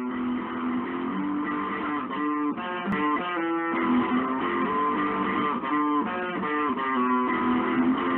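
Background music led by guitar, a steady run of changing notes.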